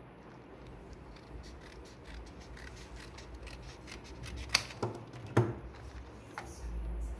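A tightly sealed package being worked open by hand: scraping and rubbing, with two sharp snaps a second apart past the middle.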